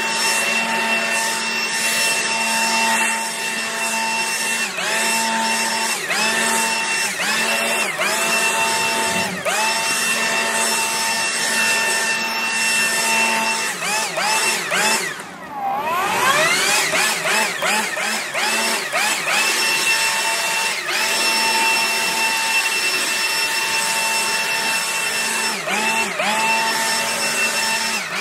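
Ryobi handheld leaf blower running with a steady whine. Several times its speed dips briefly and comes back, and about halfway through it nearly winds down and then spins back up to full speed.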